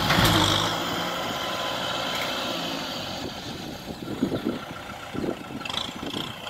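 Kubota M6040SU tractor's diesel engine running, loudest in the first moment and then settling to a lower steady run, with a few short clunks a little past the middle.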